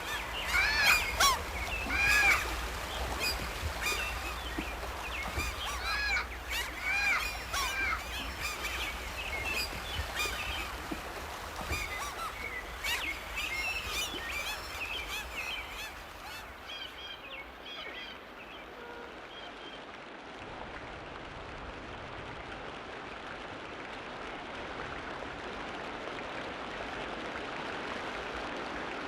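Birds calling over and over, short arched calls several times a second, over a low rumble. About sixteen seconds in, the calls fade out and a steady rushing hiss takes over, slowly growing louder.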